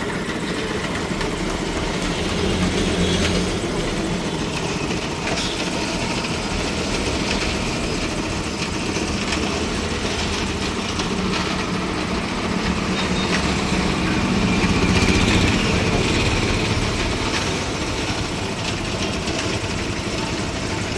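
Road traffic passing by: a steady mix of vehicle engines and tyre noise, getting louder a few seconds in and again past the middle as vehicles go by.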